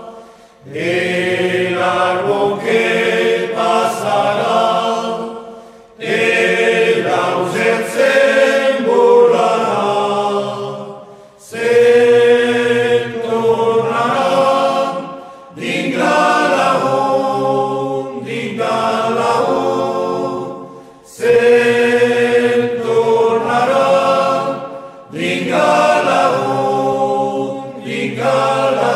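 Background music: a choir chanting in long held phrases of a few seconds each, with brief pauses between them.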